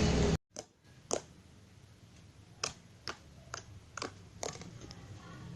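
A steady noise cuts off abruptly, then about six short, sharp clicks follow at irregular intervals.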